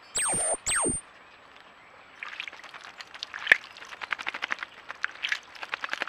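A common blackbird bathing in a garden bird bath: irregular splashing and flicking of water from about two seconds in, with one sharper slap midway. It is preceded by two loud sounds, each sliding steeply down in pitch for about half a second.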